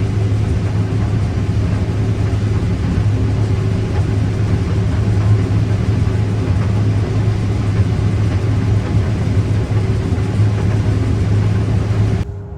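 Large diesel farm machinery running steadily under load, a deep constant drone with a noisy mechanical wash over it, which drops off sharply just before the end.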